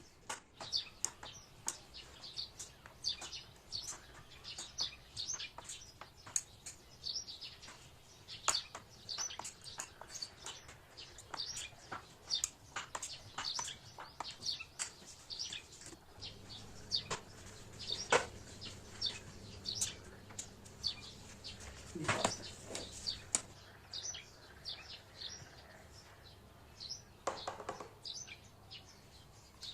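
Small birds chirping and tweeting over and over in short, high calls, with a few knocks mixed in, the loudest about two-thirds of the way through.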